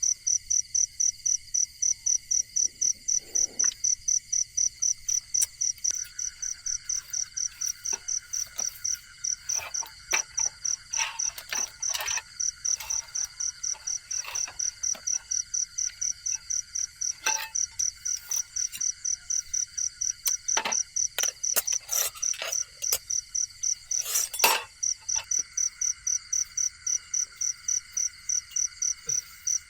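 Night insects chirping: one high, evenly pulsed chirp about three to four times a second over a steady drone of other insects. Scattered short clicks and knocks come in the middle, the loudest about 24 seconds in.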